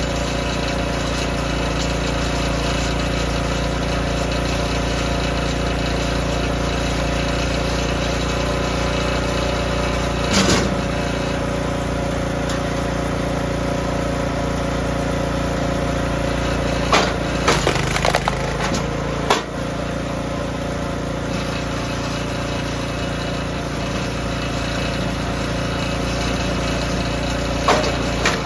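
DR K28 Pro log splitter with its small gasoline engine running steadily. A single knock comes about ten seconds in, and a little past halfway the splitter drives through a hardwood round with a burst of cracking and knocks as the wood splits, followed by a couple of clicks near the end.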